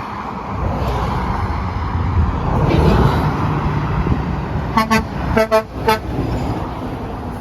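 A vehicle horn tooting a quick run of short beeps about five seconds in, over a steady rumble of road traffic.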